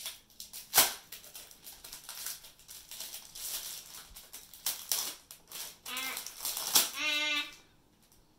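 Plastic packaging crinkling and crackling as a small wrapped item is opened by hand, with a sharp crackle about a second in. Near the end come two short high-pitched vocal sounds, the second held for about half a second.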